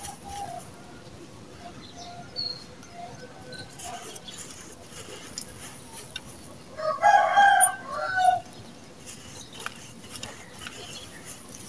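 Dry sand-cement powder crumbling and pouring through hands onto lumps of set sand-cement, a faint gritty trickle with small clicks. About seven seconds in, a rooster crows loudly for about a second and a half, the loudest sound in the stretch.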